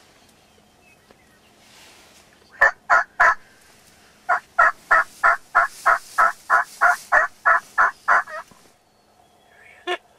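Turkey yelping in a series: three loud yelps, then a longer run of about sixteen yelps at roughly four a second, with one short note near the end.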